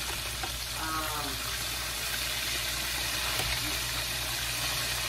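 Chicken pieces frying in hot oil in a pan: a steady sizzle.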